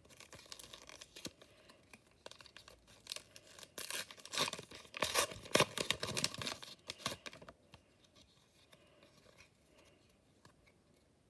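Toy packaging being torn open and crinkled by hand, in a run of rustling tears that stops about seven and a half seconds in.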